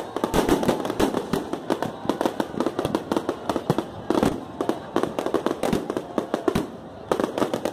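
Fireworks going off in rapid succession: a dense run of bangs and crackles, with louder clusters of bursts about half a second in and again around four seconds in.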